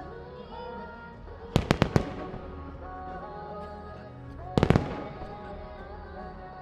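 Firework shells bursting in two quick clusters of sharp bangs, about four bangs close together just under two seconds in and another tight cluster at about four and a half seconds, over a pop song accompanying the fireworks show.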